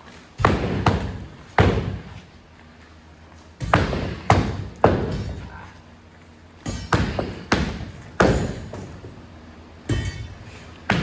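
Sledgehammers striking a concrete floor to break it up: about a dozen heavy blows in uneven groups of two to four, each with a short ring.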